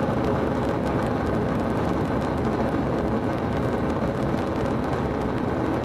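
Theatrical sound effect of an avalanche: a loud, steady rumbling noise, heaviest in the low end.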